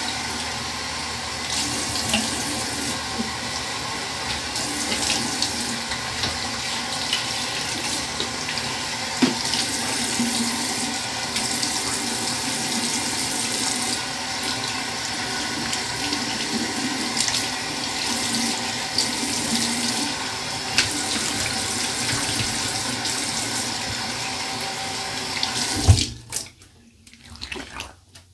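Bathroom sink tap running steadily into the basin, with the water splashing. About 26 seconds in it stops abruptly with a knock, leaving only a few faint splashes and drips.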